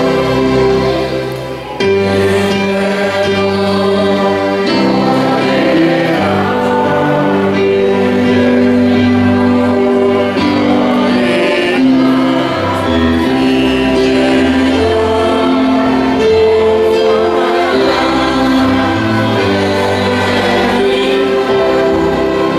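Gospel choir singing a hymn together, holding long notes over a low bass accompaniment that steps from note to note.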